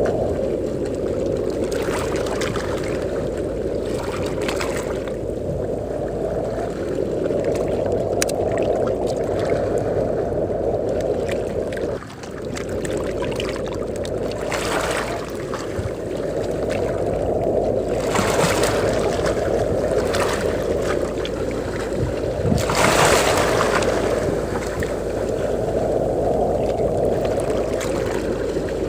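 Sea waves washing onto a beach with wind blowing. A low rushing noise swells and eases every few seconds, and a brighter hiss of surf comes in several times. The sound dips briefly about twelve seconds in.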